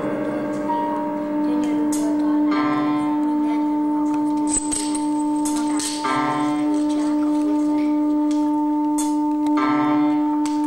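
Experimental live sound accompaniment: bell-like ringing tones held steady, with a buzzier layered tone that swells in about every three and a half seconds and a few sharp clicks.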